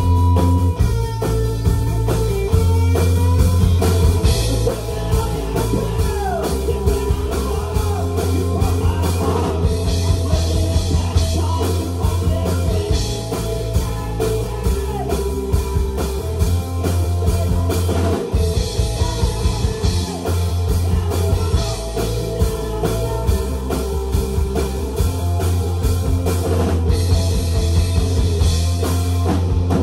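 A rock band playing live, with a drum kit, electric guitar and bass guitar.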